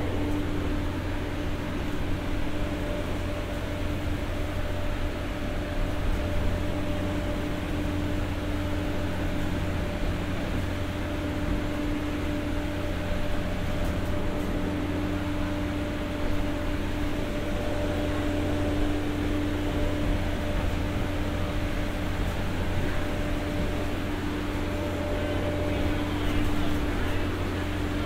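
Generator set on board a former JNR 203-series coach (KuHa 202-3) running steadily while the train stands still: a constant machine hum with a steady tone on top.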